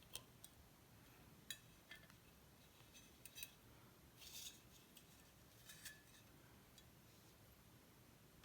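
Faint, scattered clicks and light clinks of small hard parts being handled, with a brief rustle about four seconds in.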